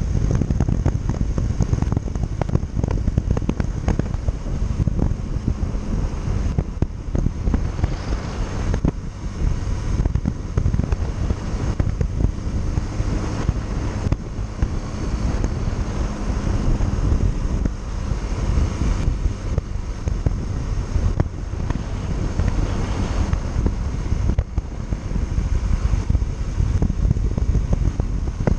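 Yamaha Factor 150 single-cylinder motorcycle running on the road, its engine hum under heavy wind buffeting on the microphone.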